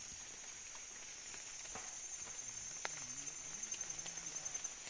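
Steady high-pitched drone of rainforest insects, with scattered small knocks and scrapes of a man climbing a wet, slippery tree trunk barefoot. About halfway in, a faint low drawn-out call wavers in pitch for a second or two.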